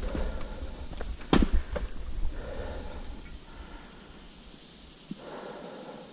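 Mountain bike rolling over a leaf-covered dirt trail: tyre rustle and crunch, with a sharp knock from the bike about a second in and a couple of smaller ones soon after. A steady high-pitched hum runs underneath.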